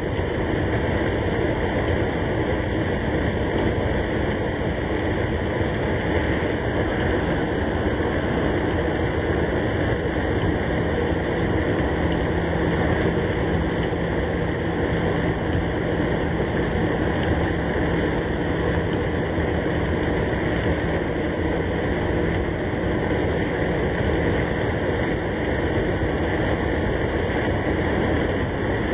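Steady rush of rain and road noise heard inside a car's cabin in a thunderstorm, even throughout with no sudden cracks or claps.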